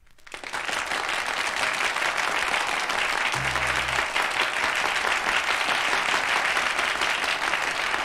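Audience applause on a vinyl record, swelling in over the first half second and then holding steady.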